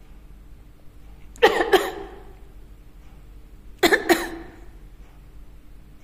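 A person coughing: two quick coughs close together about a second and a half in, then another pair about four seconds in.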